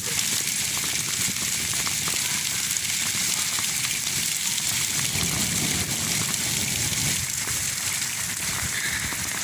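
Heavy rain pouring down with small hailstones mixed in: a steady dense hiss with many small scattered ticks.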